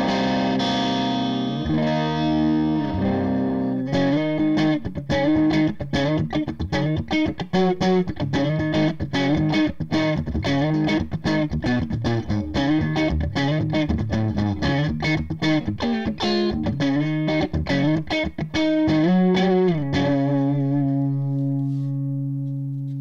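Carvin DC400 electric guitar played with a crunch tone through a Cris Custom 3.5 combo amp with a 1x12 Celestion Vintage 30 speaker: a few held chords, then fast picked lead lines. Near the end comes a wide vibrato on a bent note, and a last note is left ringing and slowly fades.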